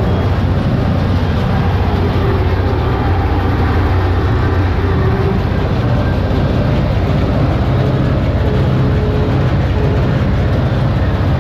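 Tractor engine running steadily under load, heard from inside the cab, as it pulls a working Sipma Z224 small square baler through a hay windrow.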